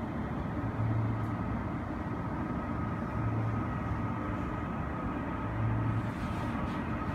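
Steady airport apron rumble with a thin, steady high whine. A low hum swells about every two and a half seconds.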